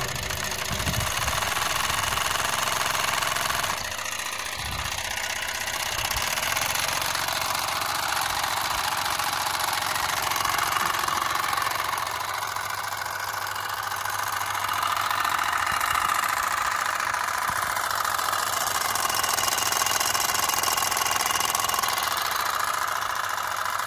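Miniature steam car engine running on compressed air from an airline: a rapid, steady chuffing with hissing exhaust.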